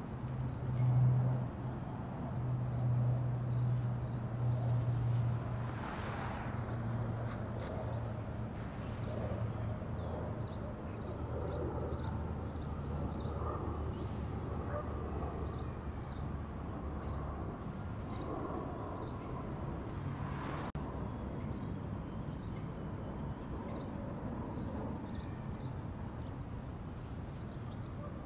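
Outdoor ambience with small birds chirping repeatedly over a steady low hum. The hum is strongest in the first few seconds and drops lower in pitch about midway.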